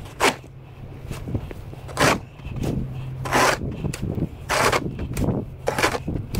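Snow shovel scraping and pushing through snow in repeated strokes, five in all, about one every second and a bit.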